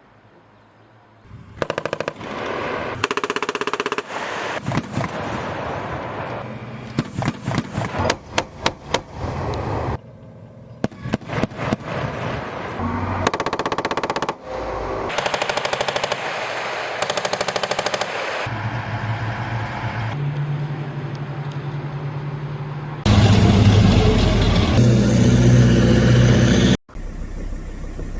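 Repeated bursts of rapid automatic gunfire from M2A3 Bradley fighting vehicles' guns, in a series of clips with abrupt cuts between them. The loudest and heaviest stretch, with a deep rumble under the shots, comes near the end and cuts off suddenly.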